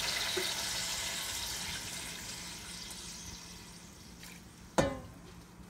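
Soaked chana dal and its water pouring into a pot of hot oil and taro, hissing and sizzling and fading away as the oil cools. A single sharp knock comes near the end.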